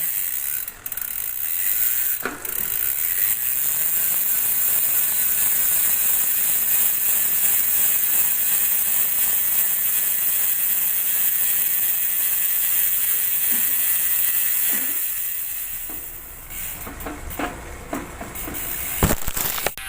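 Speedone Soldier six-pawl bicycle freehub clicking as the wheel coasts: a fast, loud ratcheting buzz that slows to separate clicks near the end as the wheel winds down.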